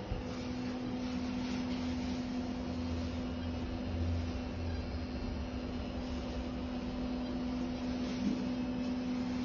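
A steady machine hum: one constant low tone over an even hiss, with no change.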